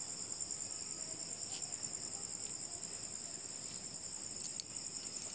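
Crickets chirping in a steady, high-pitched chorus, with a light click about four and a half seconds in.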